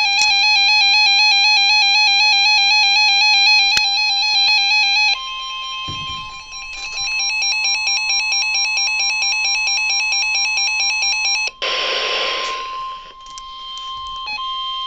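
Emergency alert signal of a severe thunderstorm warning, which is the sign that a warning broadcast is about to follow. A rapidly pulsing, buzzy multi-tone alarm sounds first. About five seconds in, a steady single high tone joins it: the 1050 Hz warning alarm tone of NOAA Weather Radio. A burst of static hiss comes about twelve seconds in.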